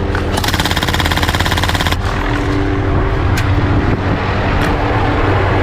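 A burst of rapid automatic gunfire lasting about a second and a half, over a steady low engine drone, followed by a few single shots.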